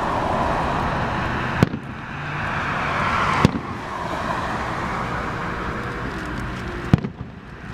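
Aerial fireworks bursting: three sharp bangs, the last one near the end followed by a few smaller cracks, over a steady rushing noise.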